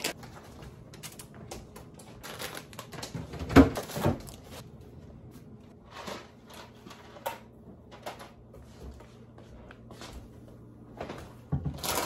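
Items being handled and set down, with scattered clicks, knocks and rustles. Two louder thumps come about three and a half and four seconds in.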